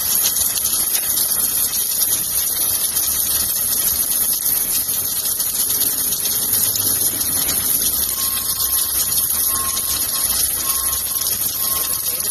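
Submerged arc welding rig running: a steady hissing rush of machine noise, with a faint steady whine joining about eight seconds in.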